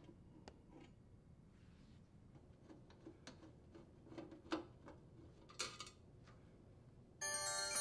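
Faint ticks and clicks of a hand Phillips screwdriver turning screws out of a sheet-metal junction box, with a few sharper metal clicks. Near the end a held electronic chime of several steady tones starts suddenly.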